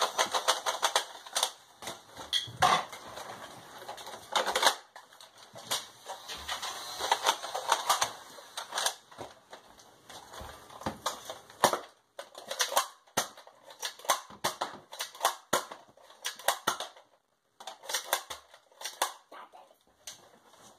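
Quick plastic clicks and clacks of Nerf blasters being handled, primed and fired, coming in irregular clusters, with a brief pause about three quarters of the way through.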